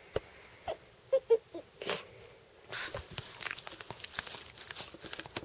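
Pekingese dog making short monkey-like squeaks, four in quick succession, then a sharp breathy snort about two seconds in. A run of crackling clicks and rustling follows to the end.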